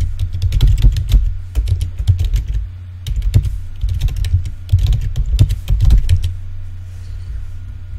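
Computer keyboard typing in quick bursts of keystrokes, thinning out and getting quieter about six seconds in.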